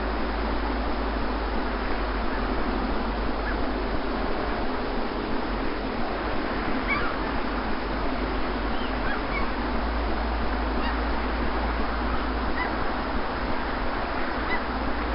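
Steady rushing wash of sea surf on a beach, with faint, scattered bird calls through the second half.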